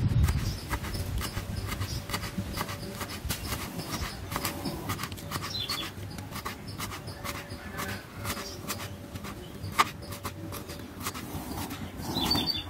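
Kitchen knife shredding cabbage on a plastic cutting board: a quick, uneven series of short chops of the blade striking the board, with one sharper knock near the end.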